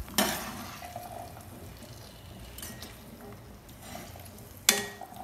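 Metal slotted spoon stirring boiled chickpeas through masala in a metal kadai. There are two sharp clanks of spoon against pan, one just after the start and one near the end with a brief ring, and soft wet stirring in between.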